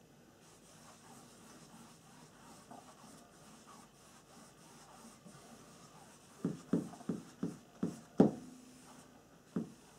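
Paintbrush working over a stretched canvas: faint rubbing of the bristles, then from about six seconds in a run of six or seven short knocks as the brush strokes strike the taut canvas.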